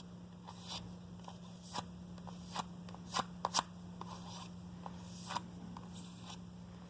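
Knife blade being stropped on a strip of leather, edge-trailing, to finish the edge after the diamond stone: a handful of short, sharp swipes at irregular intervals, several close together about halfway through.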